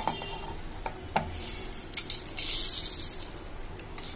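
Dry-roasted whole spices (coriander seeds, dried red chillies, cloves) poured from a steel plate into a steel mixer-grinder jar: a few clinks of steel on steel, then a rushing rattle of seeds sliding into the jar for about a second.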